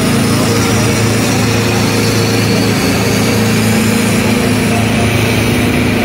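Mahindra Arjun tractor's diesel engine running at high revs under load as it pulls against another tractor hitched behind it: a loud, steady drone that holds one pitch.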